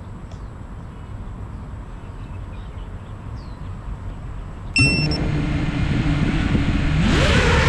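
FPV quadcopter drone arming: a short high beep about two-thirds of the way in, then its motors spin up with a steady hum and throttle up with a rising whine near the end for takeoff. Before that, only a low outdoor rumble with a few faint bird chirps.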